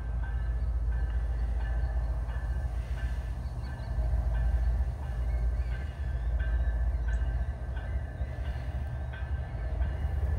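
Low rumble of two GE ES44AH diesel locomotives approaching on a light engine move. Faint short high chirps recur about once a second over it.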